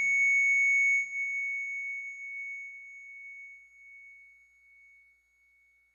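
A single high, pure ringing tone, like a struck chime, fading slowly away over about five seconds as the last low notes of the song's music die out in the first second or so.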